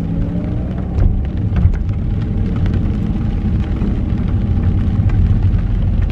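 Car engine and road rumble heard from inside the cabin while driving, with the engine note rising in pitch in the first second as the car picks up speed.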